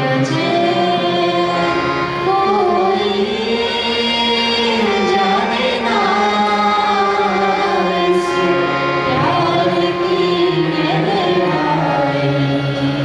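A woman and a man singing an Indian devotional song together into microphones. The melody moves in long held, ornamented notes over a steady low drone.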